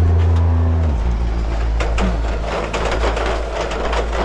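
Vehicle engine running with a steady hum that drops in pitch about a second in, settling into a lower rumble with light clicking and rattling.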